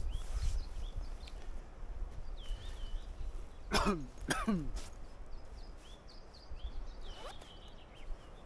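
A man clears his throat twice in quick succession about four seconds in, each sound falling in pitch. Small birds chirp faintly and repeatedly in the background.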